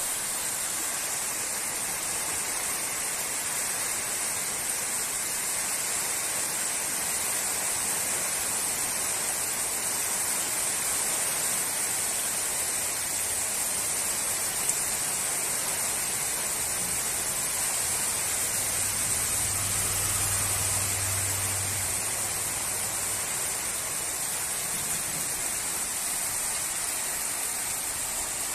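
Steady heavy rain, an even unbroken hiss.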